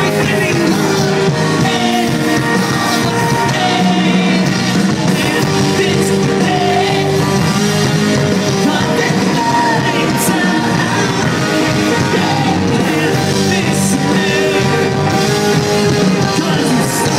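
A live rock band playing loud, with electric guitars, drums and a singing voice, heard from inside the crowd.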